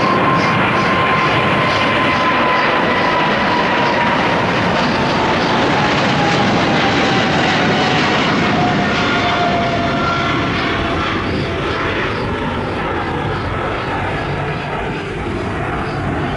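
Boeing 777 twin-turbofan jet engines at takeoff power: a loud roar with a whine that falls steadily in pitch as the airliner passes and draws away, the roar easing slightly toward the end.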